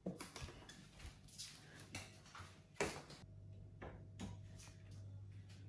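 Faint clicks and knocks of an electric oven being switched on, with the loudest click a little before three seconds in. Just after it a steady low hum starts and keeps going as the oven begins running.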